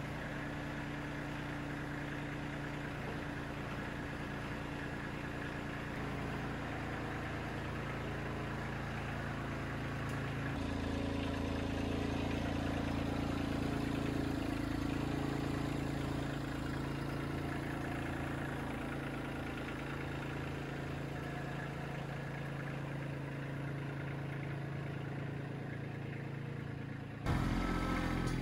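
Compact tractor's 26-horsepower diesel engine running steadily as the tractor drives, growing a little louder for a few seconds about ten seconds in.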